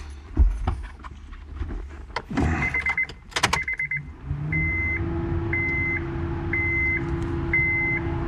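Keys rattling in a Honda Civic's ignition, then the car's warning chime: a quick run of beeps, followed by a single beep about once a second. A steady hum starts as the ignition switches on, about four seconds in.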